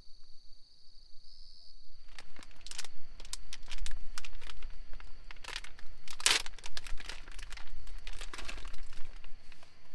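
Crinkling and rustling with many irregular crackles, as something crinkly is handled close by, loudest about six seconds in. It starts about two seconds in, where a steady high insect trill cuts off.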